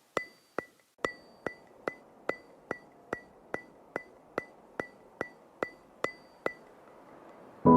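Background music: a steady ticking percussion, about two and a half short clicks a second, each with a brief bright ring. The ticks stop about six and a half seconds in, and a full ambient music passage comes in right at the end.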